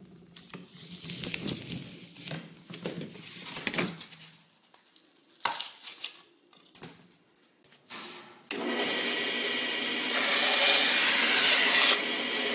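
A utility knife blade drags and scrapes through pink extruded polystyrene foam board, then the board cracks and tears along the cut. About 8.5 s in, a bandsaw starts and runs steadily, getting louder for about two seconds as its blade cuts through the foam.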